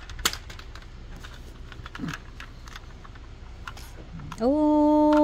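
Light plastic clicks and taps of a small toy car being handled as its door is worked at. About four and a half seconds in, a long held voice note starts, rising at first and then level.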